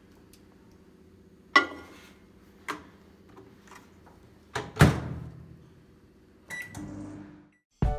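Microwave oven being loaded and started: a knock with a brief ring as something is set inside, a small click, then the door shut with a loud thump about five seconds in. Near the end come the keypad beeps of the Start button, and the oven begins to hum before the sound cuts off.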